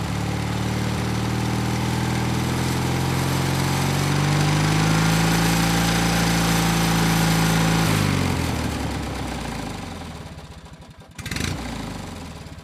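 Vehicle engine running steadily, its pitch rising a little midway, then winding down and fading out. A short knock comes near the end.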